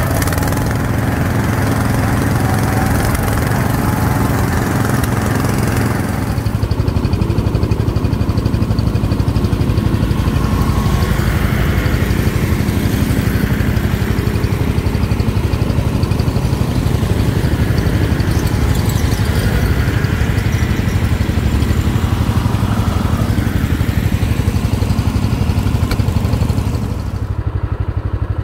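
Small garden-tractor engines running steadily as the tractors drive along, a continuous low engine drone. The sound changes abruptly about six seconds in and again near the end.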